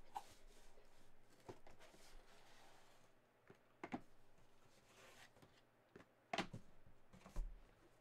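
Faint scraping and rustling of cardboard with a few light knocks as sealed card boxes are slid out of a cardboard shipping case, and a soft thump near the end as one is set down.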